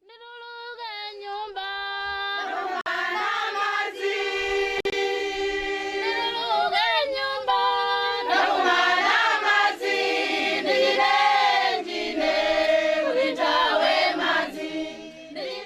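A choir singing unaccompanied, a few voices at first, fuller from about two seconds in.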